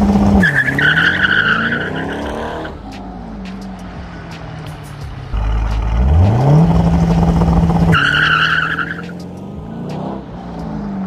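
2003 Corvette C5 Z06's V8 held at a steady rpm on an MSD two-step launch limiter, then the clutch is dropped: the tires squeal for about two seconds and the engine revs up as the car pulls away and fades off. This happens twice, the second launch held at a slightly lower rpm, with the squeal coming about eight seconds in.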